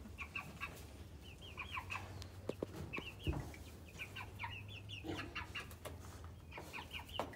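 Seven-week-old chickens, Cornish cross meat birds and egg layers, peeping and chirping over and over in short rising-and-falling calls. A soft thump sounds about three seconds in.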